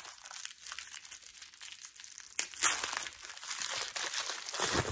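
Protective tissue paper crinkling and rustling as it is pulled off a handbag's chain strap, with louder flurries about two and a half seconds in and just before the end.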